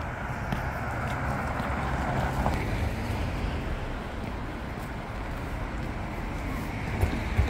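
City street traffic noise, steady, swelling louder over the first few seconds as a car goes by, with wind on the microphone. Two light knocks near the end.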